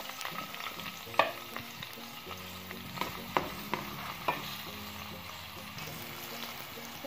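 Sliced carrots sizzling in hot oil in a metal wok as they are stirred, with a few sharp clicks and scrapes of the spatula against the pan.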